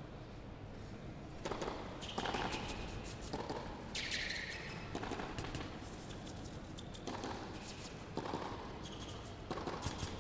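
Tennis serve and rally on an indoor court: a racket hits the ball about a second and a half in, then the ball is struck back and forth roughly once a second until near the end.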